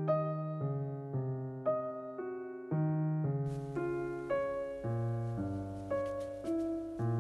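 Background piano music: a gentle melody of single notes over low sustained bass notes, about two notes a second. About halfway through, a faint hiss with a few scattered clicks joins underneath the music.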